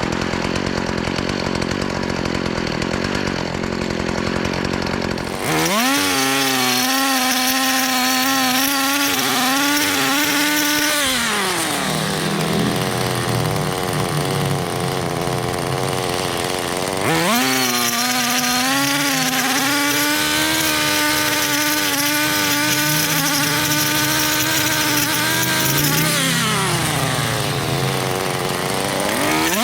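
Small two-stroke engine of a handheld landscaping power tool running at high revs, dropping to idle about eleven seconds in and revving back up some six seconds later, then easing off and climbing again near the end. The first five seconds hold a different steady machine noise, cut off abruptly.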